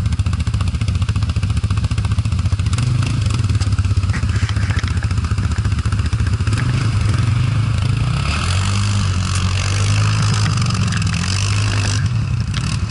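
ATV engine running at low revs with a steady throb, then picking up revs about eight seconds in as the quad pulls away along the slushy track.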